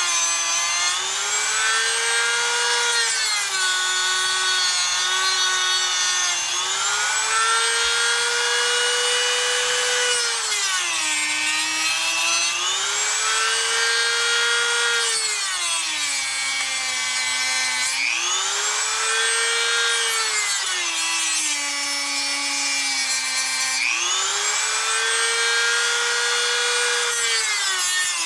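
A high-speed handheld power tool cutting into a plastic Wiz-z-z-er spinning top. It makes a continuous whine whose pitch sags and then climbs back about every four to five seconds, with a rough rasping sound of the cut mixed in.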